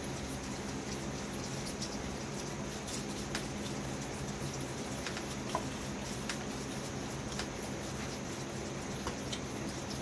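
Whitetail fawns sucking on bottle nipples on a feeding rack: scattered small wet clicks and smacks, with one short squeak about halfway through, over a steady background hum.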